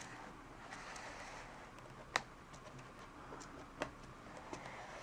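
A few faint, sharp plastic clicks from a laptop keyboard being pressed and worked into its seat, the clearest about two seconds in and a smaller one near four seconds, over low room hiss.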